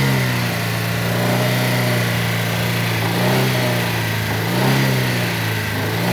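Chevrolet Celta VHC's four-cylinder engine running near idle, its pitch swelling up and back down several times at uneven intervals. It is the rough running the owner calls "rajando", with the lower part of the engine knocking more than the top.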